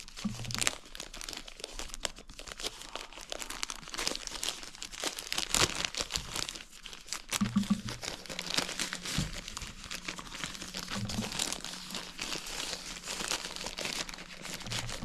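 Packaging crinkling and rustling continuously as a new camera is unwrapped and lifted out of its box by hand.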